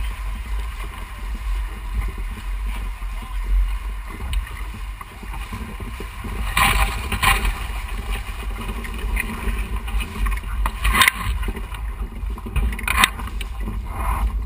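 Wind buffeting the microphone and water rushing past the hulls of a modified Mystere 5.5 catamaran sailing in strong wind. Spray splashes against the hull a few times, about halfway through and again near the end.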